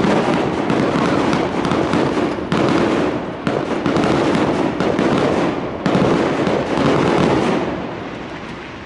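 A fireworks display: a dense, continuous barrage of shell bursts and crackling, with fresh loud bursts every second or two, easing off near the end.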